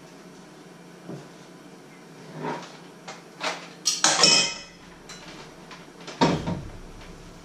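Kitchenware being handled on a wooden counter: several light clinks and knocks, then a clatter with a ringing metallic tone about four seconds in, at a stainless steel bowl. A heavier knock comes near the end.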